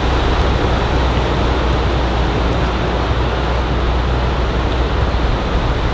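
Steady wash of ocean surf breaking on a sandy beach, with a constant low rumble underneath.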